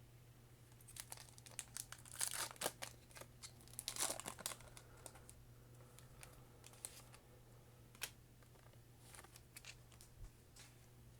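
Foil wrapper of a Pokémon booster pack crinkling and tearing as it is opened by hand. The crackling comes in two loud flurries in the first half, then thins to a few scattered rustles, over a faint steady low hum.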